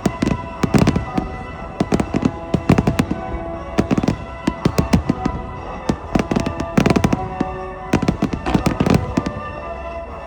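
Aerial firework shells bursting in a rapid barrage, many sharp bangs coming in clusters, with music playing underneath.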